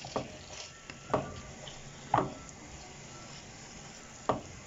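Chicken strips frying in butter in a pan with a steady low sizzle, while a wooden spatula stirs them, scraping and knocking against the pan four times.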